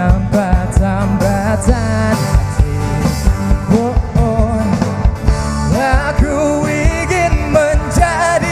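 Rock band music with a sung melody over drums, bass and guitar, with a steady beat.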